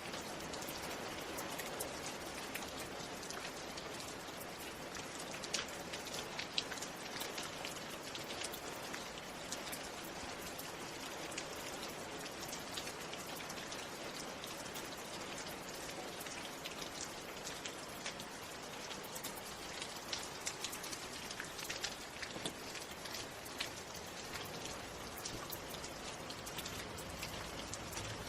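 Steady rain falling, an even hiss dotted with many individual drops striking a surface.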